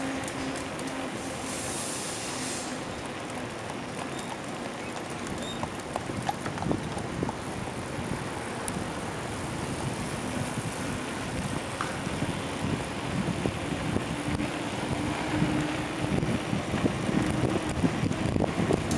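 Wind buffeting the microphone and road noise from a moving bicycle, with a faint steady hum. The gusting grows louder over the last few seconds.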